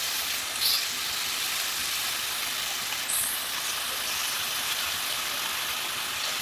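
Steak bites sizzling steadily in hot oil in a frying pan, with two brief utensil clicks or scrapes, about a second and three seconds in, as the pieces are turned.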